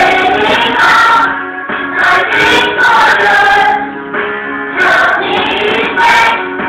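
Christian worship song sung by a choir of men's and women's voices with instrumental backing.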